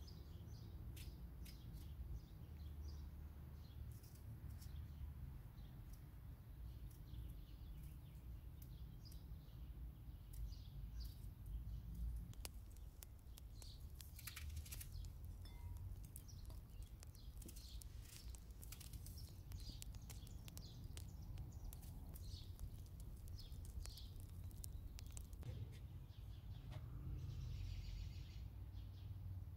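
Small knife dicing tomato and onion held in the hand, giving soft, irregular clicks and cuts, over a low outdoor rumble with birds chirping.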